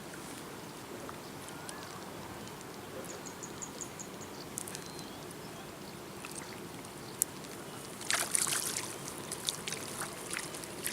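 Gentle water lapping and trickling with scattered small clicks, then a short, louder burst of noise about eight seconds in.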